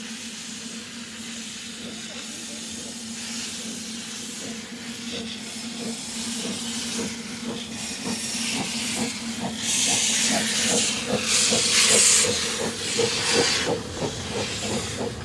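Ffestiniog Railway double Fairlie steam locomotive Merddin Emrys hissing steam from its cylinder drain cocks as it moves up and passes close by, over a steady low hum. From about eight seconds in a rhythm of soft beats comes in, two to three a second, and the hiss swells loudest around ten to twelve seconds in.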